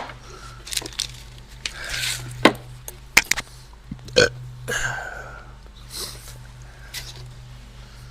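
Scattered clicks, knocks and short rustles of plastic parts and packaging being handled during assembly, over a steady low hum.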